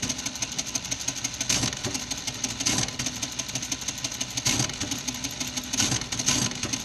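Facit CA1-13 electromechanical calculator running an automatic division: a fast, continuous mechanical clatter, with louder knocks every second or so. The machine is repeatedly subtracting the divisor and then shifting.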